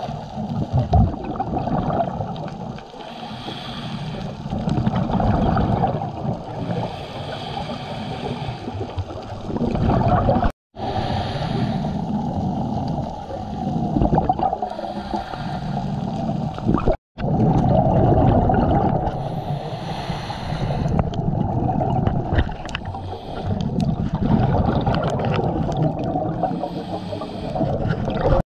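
Muffled underwater sound heard through a camera housing on a dive: a steady low water rush with bursts of bubbling about every four seconds, typical of a scuba diver's regulator exhalations. The sound cuts out briefly twice.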